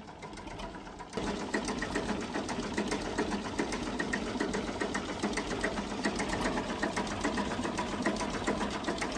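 A small machine running with a fast, even mechanical clatter that starts about a second in and keeps on steadily.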